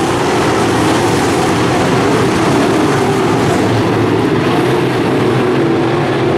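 A pack of dirt modified race cars' V8 engines running at racing speed on the track, one loud, steady, dense drone of many engines together.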